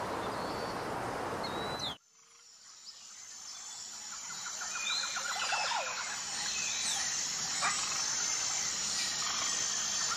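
Outdoor ambience with scattered bird chirps over a steady hiss. It cuts out abruptly about two seconds in, then fades back in with more chirps and a quick rattling call in the middle.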